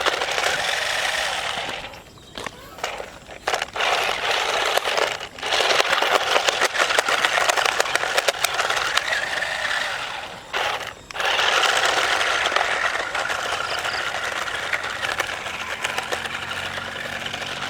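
Toy RC stunt car driving: its small electric drive motors whir while its plastic body rattles and clatters over the ground. It stops briefly about two seconds in, again around five seconds, and once more near eleven seconds.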